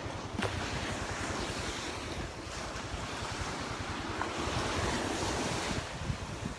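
Gulf surf washing onto a sandy beach in a steady wash of noise, growing a little louder in the second half, with wind rumbling on the microphone.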